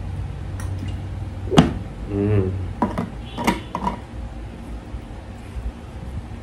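Tabletop knocks and light clatter as a water bottle is put down and dishes are handled during a meal: one sharp knock about a second and a half in, a short throat sound after the drink, then a few quick knocks.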